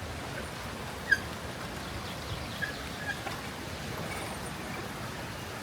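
Steady rush of river water with a few short bird calls over it, the loudest about a second in.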